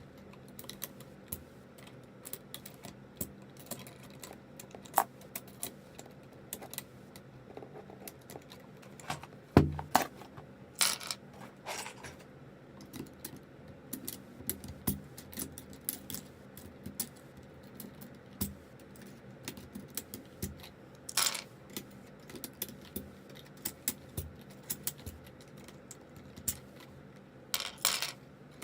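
Plastic keycaps on a zz96 keyboard being pulled off and pressed back onto the switches: scattered sharp clicks and clacks at an irregular pace, with a few louder knocks and one dull thump about a third of the way in.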